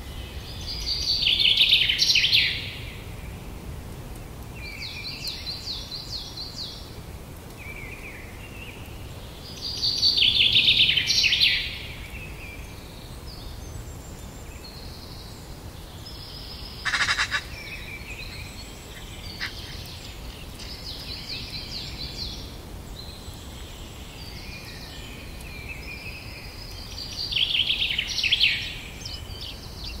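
Small songbirds singing. A loud trilled phrase of about a second and a half comes three times, with quieter song phrases between, one sharp call midway, and a low rumble underneath.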